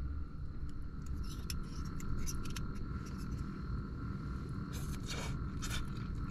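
Metal fork and spoon scraping and clinking against a ceramic plate while twirling spaghetti, in scattered short strokes with a louder cluster near the end. A steady low hum runs underneath.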